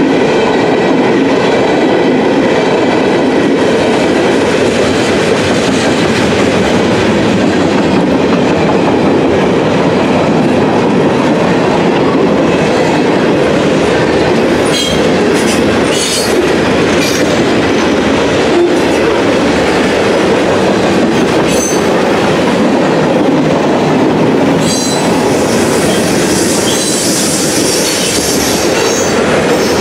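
Freight cars of a CSX manifest train, tank cars and covered hoppers, rolling past close by: a steady loud rumble of steel wheels on the rails with a clicking rhythm. High-pitched wheel squeals come in briefly about halfway through and again, stronger, near the end.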